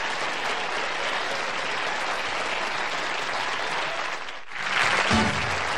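Studio audience applauding. The applause dips briefly about four and a half seconds in, swells again, and music starts just before the end.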